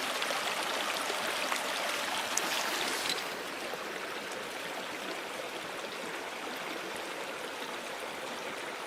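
Small mountain-creek waterfalls: a steady, even rush of falling water, a little softer from about three seconds in.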